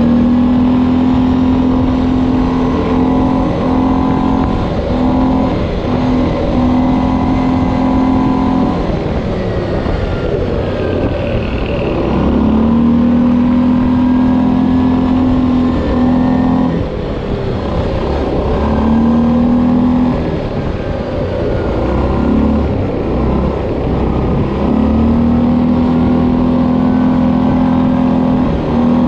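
Linhai 500 Promax ATV's single-cylinder engine running under way. Its note holds steady under throttle, drops away several times as the throttle is eased off, and climbs back as it is opened again, over a rushing haze of wind and ride noise.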